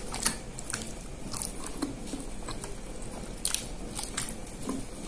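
Close-miked eating sounds: a banana-leaf wrapper crackling in sharp separate clicks as it is peeled off a lontong rice cake, then biting into the rice cake near the end.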